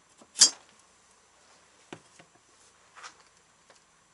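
One sharp metallic clink about half a second in, then a few faint knocks, as the finned cylinder of a Ural motorcycle engine is taken off its piston and metal engine parts are handled.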